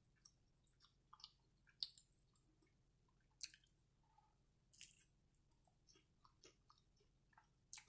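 Quiet chewing of a chicken and cheese quesadilla, with scattered brief mouth clicks and smacks; a few louder smacks come about three and a half and five seconds in.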